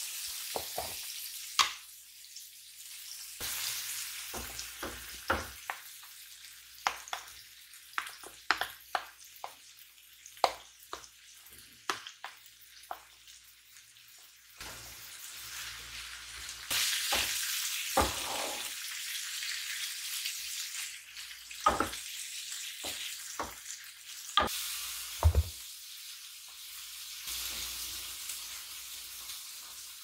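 Chopped peppers, onion and chicken sizzling in a frying pan, with the scrape and tap of a spatula stirring them. Many short sharp clicks and knocks, and the sizzle gets louder about halfway through.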